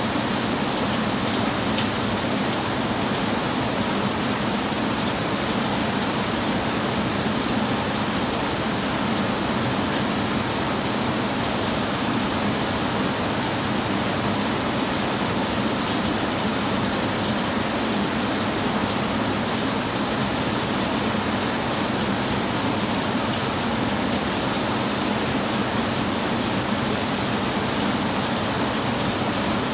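Heavy rain on a tin roof, a steady, even hiss.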